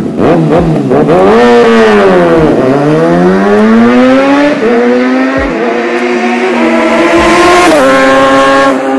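Motorcycle engine revving and then accelerating hard through the gears, its pitch climbing in long rises with sudden steps where it shifts.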